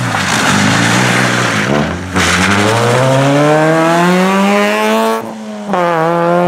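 Peugeot 106 rally car's engine revving hard on a wet tarmac stage: the revs drop as it slides into a corner, with a hiss of tyres on the wet road, then climb steadily as it drives out. Near the end the sound cuts to another rally car's engine revving up as it approaches.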